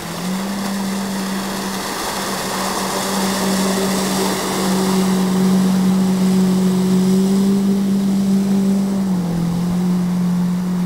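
The Yamaha 110 hp four-stroke engine of a jet-drive RIB runs at speed past and around the listener, a steady drone over the rush of the hull and jet spray on the water. It grows louder as the boat comes closest about halfway through, and the engine note drops slightly near the end as it eases off.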